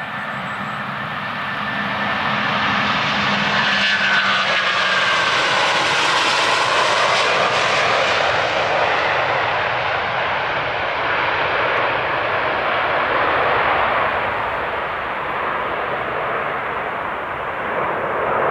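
Airbus A330-200 twin-engine jet taking off at full thrust and climbing away. The roar builds as it passes, with a whine that drops in pitch a few seconds in, then a steady rumble continues as it climbs.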